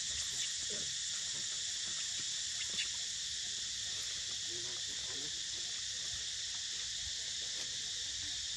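Steady, high-pitched drone of an insect chorus in the forest, with a few faint ticks.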